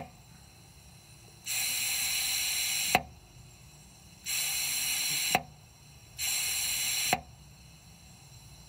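Shop air hissing out through the IPR valve of a Ford 6.0L Power Stroke's high-pressure oil pump whenever its solenoid is released. Each hiss is cut off by a click as 12 volts is applied to the solenoid, which closes the air's bleed path. There are three bursts of one to one and a half seconds, one click at the very start and one ending each burst.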